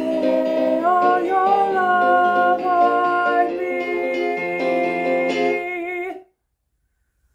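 A man sings a musical-theatre song over instrumental accompaniment. He ends on a long held note with wide vibrato, and about six seconds in the sound cuts off to silence.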